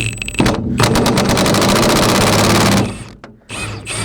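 Impact wrench hammering on a bolt: a fast, even rattle over a motor hum that runs for about two seconds and stops abruptly, with a few clicks before it and light clatter after.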